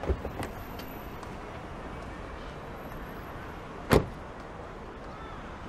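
A few short latch clicks near the start, then a car door shut hard once about four seconds in, the loudest sound; the door belongs to a Jeep Wrangler. A steady hum of street traffic runs underneath.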